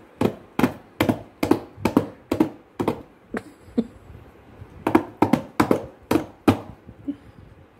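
A toddler's hands slapping the top of a cardboard formula-milk box, played like a tabla: quick thumps, often in pairs, about two or three a second. They come in two runs with a pause of over a second in the middle.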